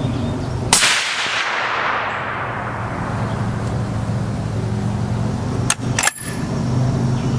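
Suppressed rifle shots: one about a second in with a long echoing tail, then two more close together near the end, over a steady low hum.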